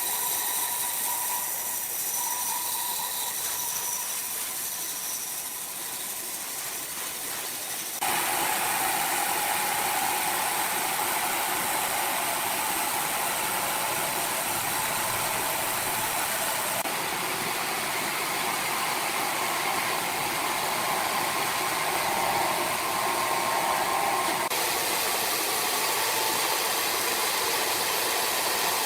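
Sawmill machinery running steadily: a motor hum with a constant rushing noise. It jumps louder and changes character abruptly about eight seconds in, and shifts again twice later.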